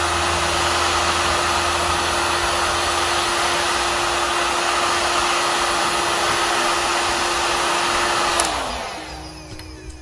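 Heat gun running steadily, blowing hot air onto a receiver's DTS chip to reflow its solder. About eight seconds in it is switched off, and its steady tone slides down and fades as the fan winds down.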